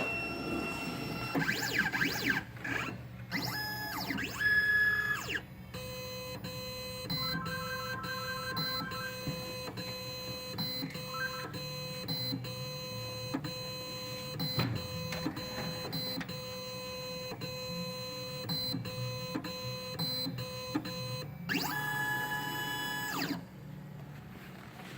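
Laser Key Products 3D Xtreme S automatic key machine tracing a slot-type key. Its motors whine in rising and falling sweeps as the carriage moves. Then comes a long steady whine, with frequent short clicks as the tracer steps along the key, another pair of sweeps, and the machine stops shortly before the end.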